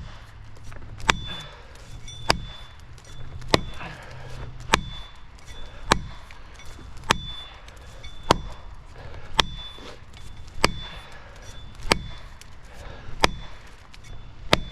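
A felling wedge being driven into the back cut of a white oak with steady hammer blows, about one strike a second, each with a short ring. The wedging is meant to tip over a cut tree that is still holding on.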